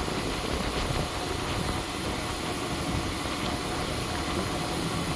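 A 5 horsepower three-phase Champion air compressor running steadily.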